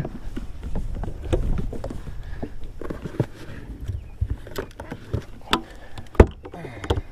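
Scattered knocks and clatter of gear being handled on a bass boat's deck, the loudest a single sharp knock about six seconds in, over a low rumble.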